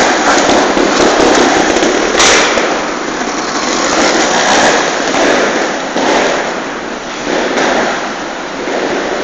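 Trials motorcycle engines running, a loud, dense crackling with one sharp crack a little after two seconds in.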